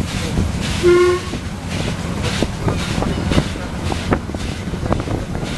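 Steam locomotive running at speed, heard from its tender: a steady rush of running noise and wind with a regular pulsing beat and sharp clicks of wheels over rail joints. A short pitched toot about a second in is the loudest moment.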